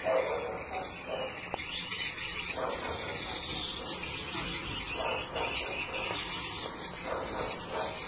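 Gouldian finches calling and singing: a steady chatter of high, thin chirps and buzzy trills.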